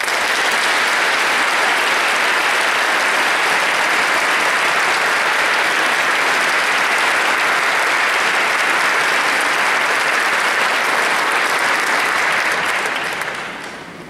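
Large audience applauding, a dense, steady clapping that starts all at once and dies away near the end.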